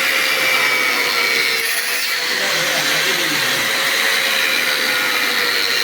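A motor running steadily: a constant whine over a loud hiss.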